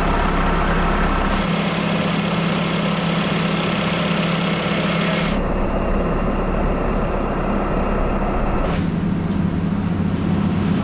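Telehandler's diesel engine running steadily, a low hum with noise above it. The sound changes abruptly a few times.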